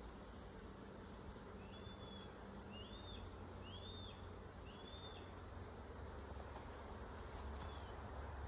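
Honeybees buzzing around an open hive, a steady hum. Four short high chirps about a second apart start about two seconds in.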